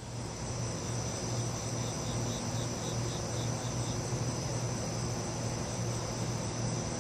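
Crickets chirping in a continuous high trill, with a second insect adding a short run of rapid pulses, about five a second, from about two to four seconds in. A steady low hum runs underneath.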